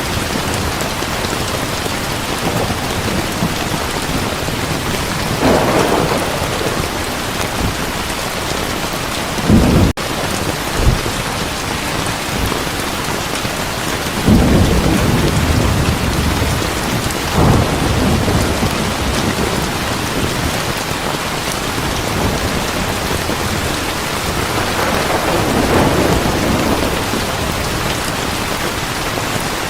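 Heavy rain falling steadily, with thunder rumbling several times: about five seconds in, near ten seconds, around fourteen and seventeen seconds, and a longer roll in the last few seconds.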